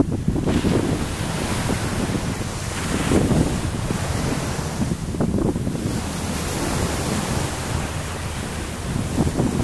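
Wind buffeting the camera microphone: a steady rushing noise with a low rumble that swells and eases in gusts.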